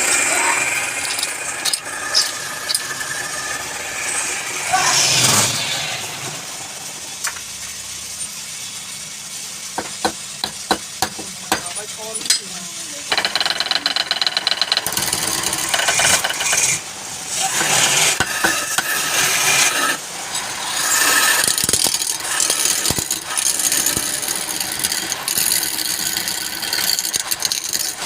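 Wood lathe running while a turning tool cuts into the spinning wood, the cutting noise rising and falling, with a run of sharp clicks partway through.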